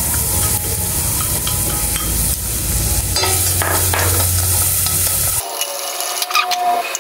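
Minced garlic sizzling in hot oil in a stainless steel pot while a wooden spatula stirs and scrapes it. A steady low hum under the sizzle cuts off about five seconds in, after which the sizzle and the clicks of the spatula against the pot are heard.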